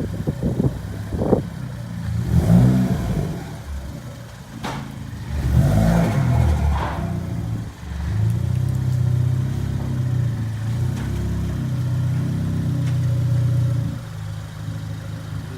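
Turbocharged car engine under way, its pitch rising and falling twice as it accelerates, then running at a steady pitch while cruising.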